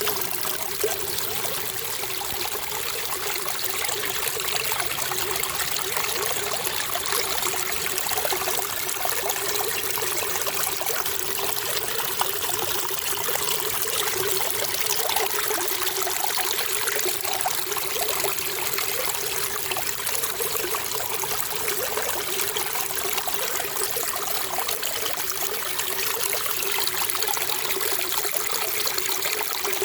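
Water trickling and running steadily, a continuous even splashing with no breaks.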